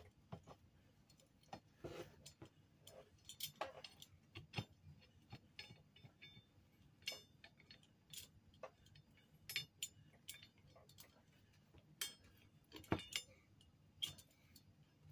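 Faint, scattered metallic clicks and clinks as Vise-Grip-style locking clamp pliers are handled, adjusted and clamped onto the end of a steel flat bar; irregular single ticks, the sharpest a little before the end.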